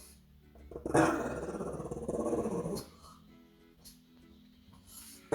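A pug growling: one rough, grumbling growl lasting nearly two seconds, starting about a second in.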